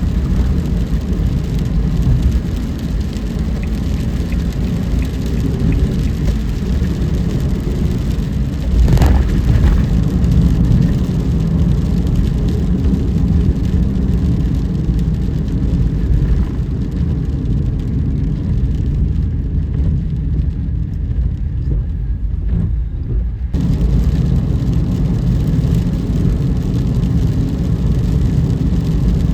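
A car driving on a wet road in the rain: a steady low rumble of road and engine noise with tyre hiss. There is a brief louder swell about nine seconds in. About two-thirds of the way through, the hiss thins out for a few seconds, then comes back suddenly.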